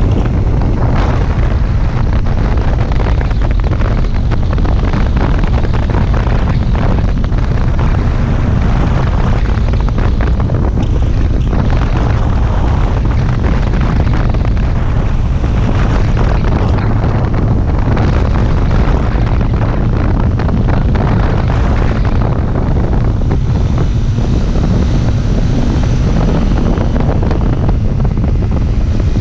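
Heavy wind rushing over the microphone of a motorcycle travelling at road speed, with the bike's engine running steadily underneath.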